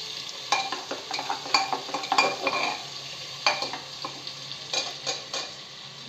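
Steel spoon stirring onions frying in oil in an aluminium pressure cooker, clinking and scraping against the pot over a sizzle. The stirring strokes come in two runs and stop shortly before the end, leaving the sizzle alone.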